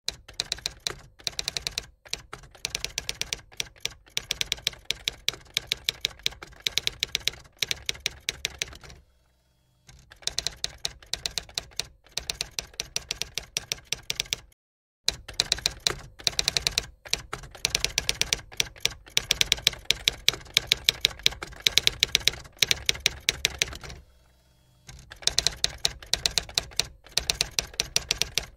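Typewriter keys clacking rapidly in long runs of strikes, stopping for about a second twice.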